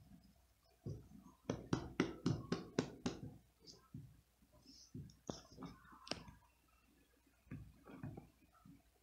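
Soft knocks and taps from a hand prodding a resting cat on a rug: a quick run of about six a second or so in, then scattered single taps.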